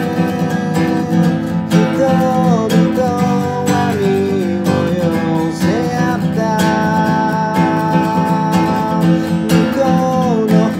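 Acoustic guitar strummed steadily in chords, with a voice singing a melody over it in long, sliding held notes.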